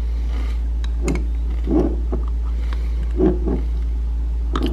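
A steady low rumble, over which come a few short, soft knocks and scrapes as a glass jar of bouillon paste is opened and a metal spoon dips into it.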